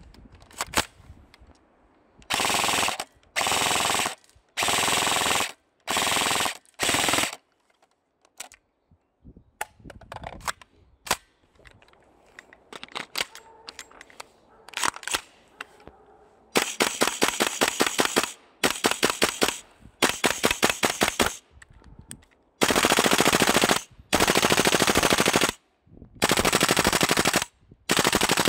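Airsoft guns firing full-auto bursts, a second or so each. About nine to fifteen seconds in there are only scattered single shots. Longer bursts of rapid fire follow, each shot distinct.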